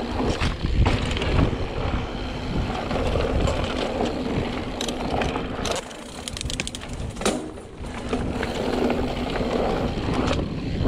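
Mountain bike rolling down a dirt singletrack: tyres crunching over dirt and roots with a steady rumble, and the bike's chain and parts clattering in short clicks over the bumps.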